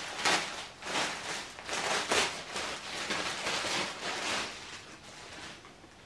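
Clear plastic packaging bag crinkling and rustling in irregular bursts as it is opened and a dress is pulled out of it, dying away near the end.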